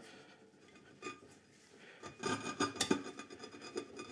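AGA cooker's simmering plate being shifted and turned by hand in its seat on the cooker top. Metal scrapes and clinks against metal, busiest from about two to three seconds in, as the plate is seated to check that it sits flush.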